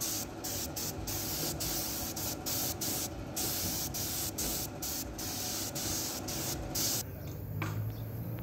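Air spray gun spraying a finish, a steady hiss cut by many brief pauses as the trigger is let off and squeezed again. The hiss stops about seven seconds in, leaving a low hum.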